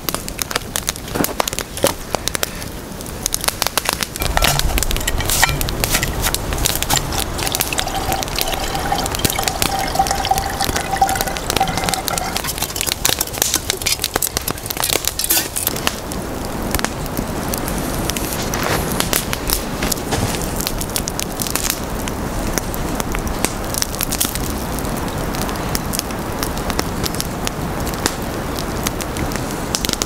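Wood campfire crackling and popping, with dense irregular snaps and clicks, rougher and louder for a stretch near the middle. A thin whistle-like tone sounds for about four seconds, starting about eight seconds in.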